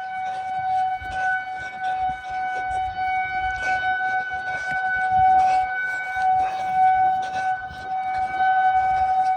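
Outdoor warning siren sounding one steady tone, swelling and fading slightly, with faint clicks and rustles close by.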